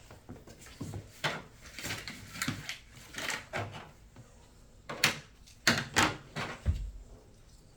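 Handling noise: an irregular run of light clicks, knocks and short rubs, loudest in a cluster of sharp clicks about five to six and a half seconds in.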